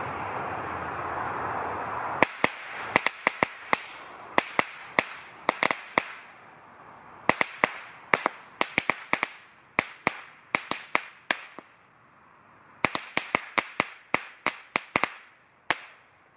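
A Kalaschnikow firecracker chain going off: sharp bangs at about three a second in three runs with short pauses between them, a bit too slow for a chain. Before it starts there are a couple of seconds of steady background noise.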